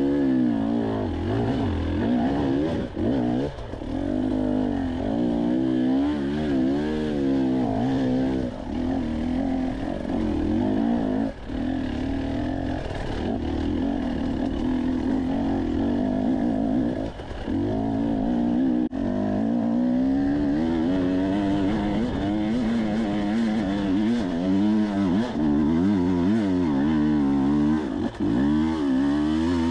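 Dirt bike engine running under a constantly changing throttle as it is ridden up a rutted hill trail, its pitch rising and falling. It drops off briefly a few times when the throttle is closed.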